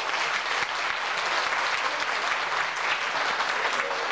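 Audience applauding steadily, the many-handed clapping holding an even level.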